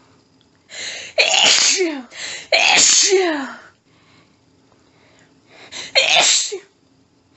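A woman sneezing forcefully three times in a sneezing fit, each sneeze led in by a short hitching in-breath. Two come in quick succession about a second in, then after a pause a third near the end.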